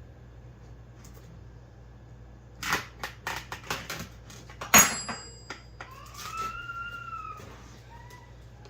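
Knocks and clicks of card boxes and their packaging being handled on a table, the loudest a sharp knock with a short metallic ring about five seconds in, followed by a short squeak that rises and falls.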